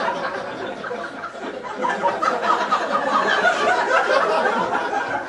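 Comedy club audience laughing together, loud and sustained, beginning to die down at the very end.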